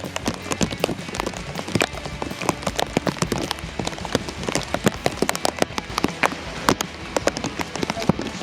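Rain striking a surface close to the microphone: a dense, irregular run of sharp taps.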